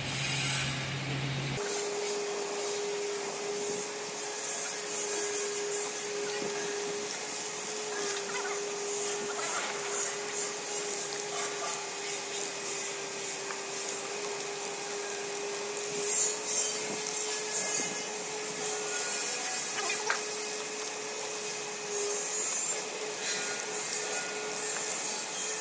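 Ratchet wrench clicking and scraping as nuts are tightened onto the steel studs of a power-hammer cover plate, over a steady workshop machine hum that sets in about a second and a half in.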